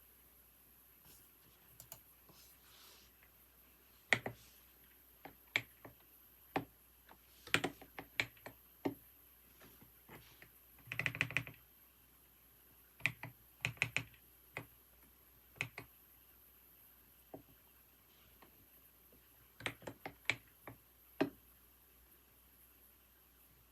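Typing on a computer keyboard: single keystrokes and short irregular bursts of clicks with pauses between them, and a quick run of keys about eleven seconds in.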